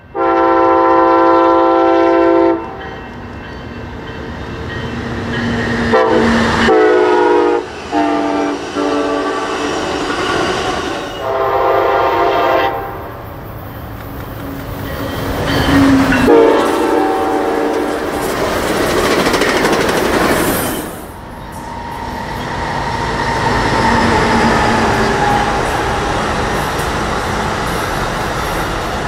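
Passenger train air horns sounding several loud multi-note blasts over the rumble and rush of passing trains, with wheels clicking on the rail joints. About two-thirds of the way through, one horn drops in pitch as its train goes by.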